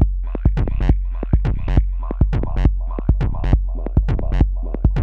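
Electronic techno music played live on a Korg Electribe Sampler and Volca Keys: a steady low bass under short, crisp percussion hits about four a second, with a sharper accent roughly once a second.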